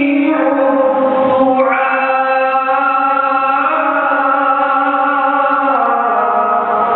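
A man reciting the Quran in a slow melodic chant into a microphone, holding long notes that step from pitch to pitch and drop lower near the end.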